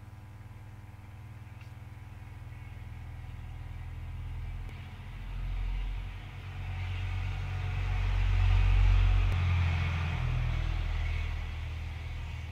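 A deep rumble over a steady low hum. It builds from about a third of the way in, is loudest a little past the middle and then slowly fades.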